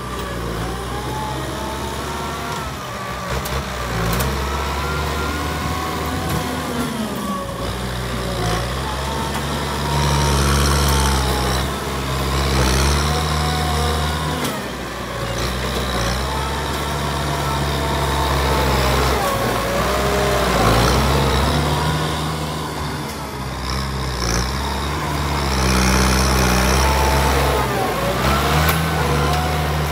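Kubota M9540 tractor's diesel engine working as its front blade pushes soil, the engine note rising and falling every few seconds with the load. A whine rises and falls along with the engine.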